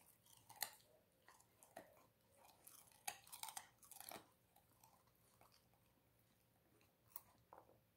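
A chow chow dog crunching and chewing a piece of raw carrot in faint, irregular bites, most of them in the first half.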